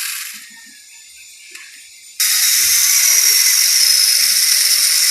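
Electric angle grinder fitted with a 12-inch chainsaw attachment running with a high-pitched whine and chain rattle; the sound dies away within about half a second, then comes back in abruptly about two seconds in and runs on steadily.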